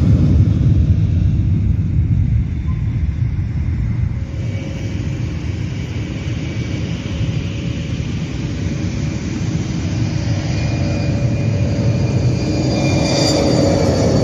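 Airliner jet engines on the takeoff roll. A loud, deep roar eases off over the first few seconds, then a steady engine whine comes in and grows louder toward the end as the next jet powers down the runway.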